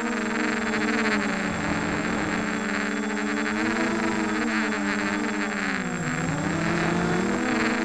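Brushless motors and propellers of a ZMR 250 racing quadcopter whining in flight, heard through the camera mounted on it; the pitch rises and falls with the throttle, dipping near six seconds and climbing back, over a hiss of propeller wash.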